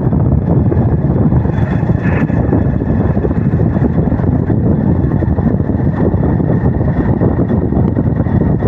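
Wind buffeting the microphone of a vehicle moving along a road, a loud steady rumble with a faint steady high whine running through it.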